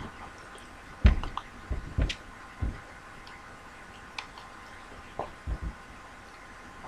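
A few soft knocks and clicks at irregular intervals: a cluster between one and three seconds in, and a few more past five seconds.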